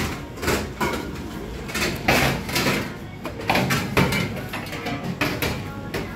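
Irregular knocks and clatters of hard objects, about a dozen over six seconds, the loudest near the start, about two seconds in, and about four seconds in.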